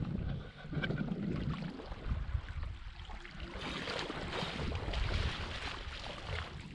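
Legs wading through shallow lake water, splashing and swishing with the steps, over low rumbling wind on the microphone. The splashing gets brighter and busier about halfway through.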